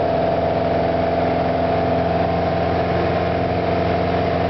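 Cockpit sound of a Piper Warrior's four-cylinder Lycoming engine and propeller in a steady, even drone at climb power just after takeoff.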